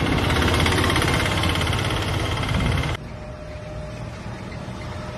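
A motor vehicle engine running amid street traffic noise. It cuts off abruptly about three seconds in, leaving a quieter background with a faint steady hum.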